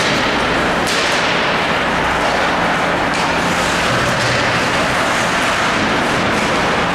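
Ice hockey arena din while play is on: a steady, loud wash of noise, with sharp knocks about a second in and again about three seconds in.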